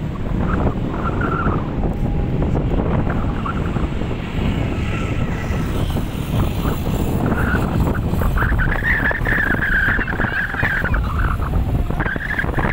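Wind buffeting the microphone in a steady low rumble, with a wavering high-pitched whine or call rising over it for a few seconds in the second half and again near the end.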